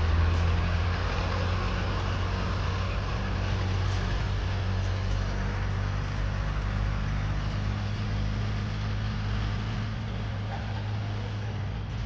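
A vehicle running: a steady low engine hum over even rolling and road noise.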